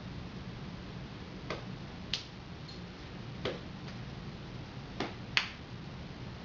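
About six sharp slaps of hands striking forearms and body during a fast solo Filipino martial arts hand drill, coming in loose pairs. A low steady hum runs underneath.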